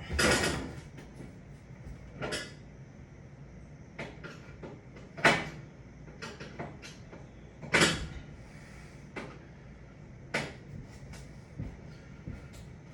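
Intermittent knocks, clanks and scrapes of sheet-metal oven parts and a screwdriver being handled, with sharp ones near the start and at about five and eight seconds in.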